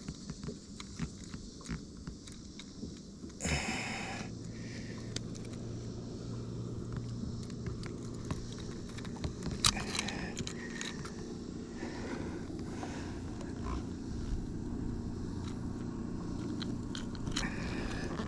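Light clicks and scrapes of handling, then from about four seconds in a steady low hum of a boat motor running.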